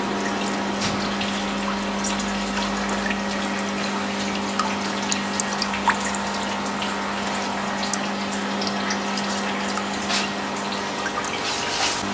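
Agarwood oil distillation equipment: water running and dripping over a steady low hum.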